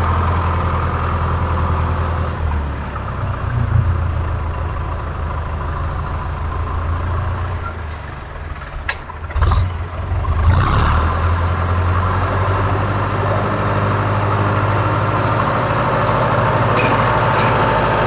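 An engine running steadily with a low hum. About halfway through it eases off, with a few short knocks, then picks back up and runs on evenly.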